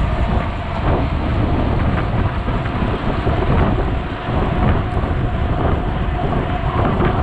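Wind noise buffeting the microphone of a camera riding on a moving bicycle, steady and loud, mixed with the rolling hum of the bike's tyres on asphalt.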